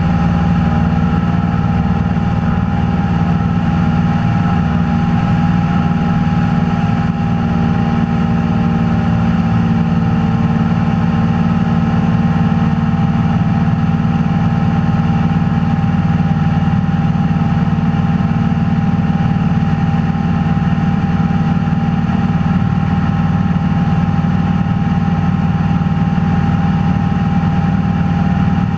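Cessna 172's piston engine and propeller running at a steady power setting in flight, heard from inside the cabin as a loud, even drone that doesn't change.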